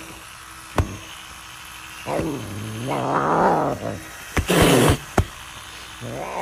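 Serval growling: a low throaty call about two seconds in, followed by a short harsh, hissy burst, with a few sharp clicks, and another call beginning near the end.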